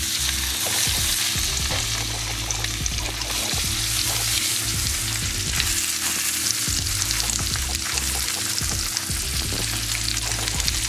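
Seasoned salmon fillets frying in hot olive oil in a skillet: a steady sizzling hiss with fine crackling spatters.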